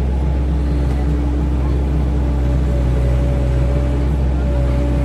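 Excavator diesel engine running steadily under work, a loud low hum with a steady higher whine that comes in about half a second in.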